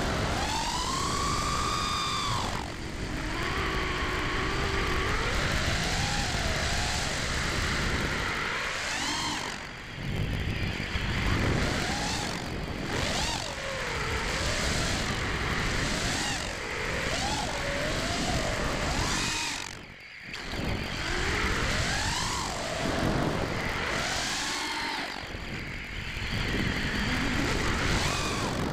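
Four ZMX Fusion 2205 2300kv brushless motors spinning HQProp 5040 three-blade props on a 5-inch FPV freestyle quadcopter, heard from the onboard camera: a buzzing whine that rises and falls in pitch as the throttle changes. It drops away briefly a few times where the throttle is cut, most deeply about twenty seconds in.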